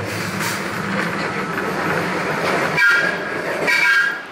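Heritage streetcar running along street tracks, a steady rumble of wheels and motors, with two short high-pitched tones, about three and four seconds in.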